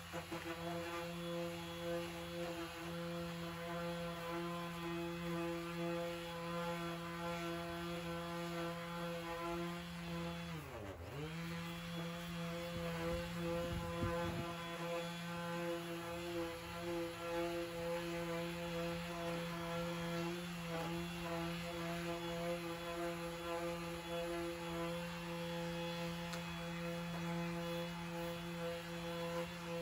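Electric random orbital sander running steadily as it sands a yellowed plastic headlight lens, a constant motor hum. About eleven seconds in its pitch drops briefly and comes back up as the motor slows and spins up again.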